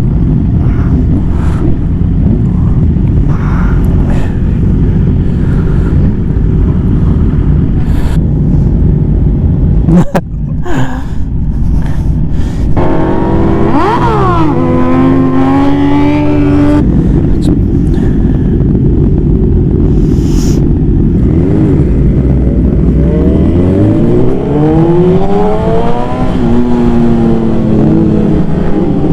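Sport-bike inline-four engine under way with heavy wind rush on the mic; twice the revs climb and step through gear changes, about 13 seconds in and again from about 22 seconds.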